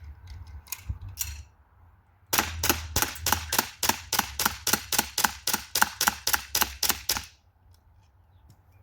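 Springfield Armory M1911A1 BB pistol fired rapidly, about twenty sharp shots at roughly four a second over some five seconds, then stopping. It is emptying a magazine in a speed-shooting drill. Two clicks come before the string.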